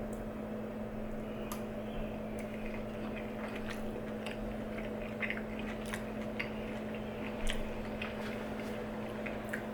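A person chewing a mouthful of ground beef and broccoli casserole: small, scattered mouth clicks over a steady background hum.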